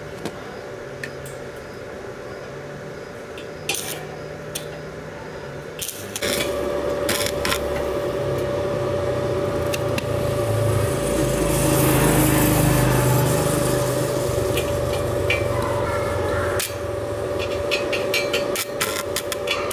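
Stick welder striking and running an arc on steel square tubing: crackling arc with a steady hum, starting about six seconds in and loudest near the middle, after a few sharp clicks and taps.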